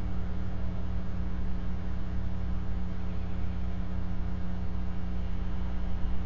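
A steady low hum with several held tones over a faint even hiss, unchanging throughout.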